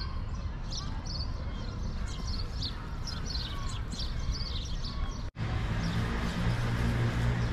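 Small birds chirping over and over, many short high calls, against low outdoor wind and ambient noise. About five seconds in the sound cuts abruptly to a fuller background murmur with a steady low hum.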